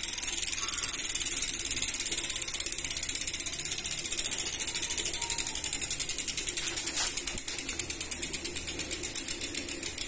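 Three-pawl RT freehub on a coasting bicycle rear wheel, ratcheting in a rapid run of even clicks. The clicks slow as the wheel winds down until single clicks stand apart near the end, the wheel still spinning freely after more than a minute.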